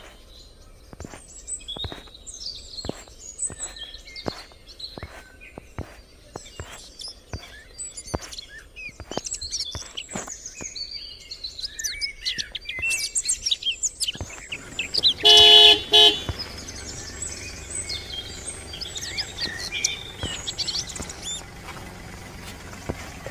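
Birds chirping over a regular tapping of footsteps; about fifteen seconds in a vehicle engine comes up and a car horn gives two short honks, the loudest sound, as a van drives past.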